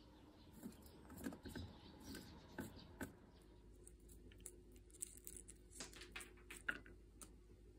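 Faint scattered clicks and light taps of soaked almonds being squeezed out of their skins by hand and dropped into a small ceramic bowl, with a faint low hum starting about three seconds in.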